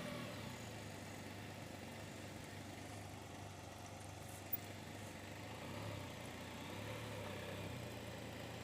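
A vehicle engine running steadily with a low, even hum, with one short click about four and a half seconds in.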